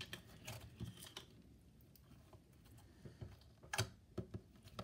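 A large lump of glitter slime being kneaded and folded by hand: faint, scattered squishes and small clicks, the sharpest one just under four seconds in.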